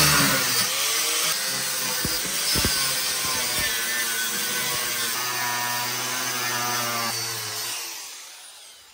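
Angle grinder with a cut-off disc cutting through a steel mud flap bracket, running steadily for most of the time. It winds down near the end.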